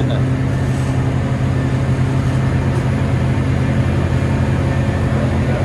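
Chevrolet LT1 383 stroker V8 idling steadily on an engine dyno during warm-up, its big Comp 292XFI camshaft giving it a lopey idle. Heard through the dyno control-room window.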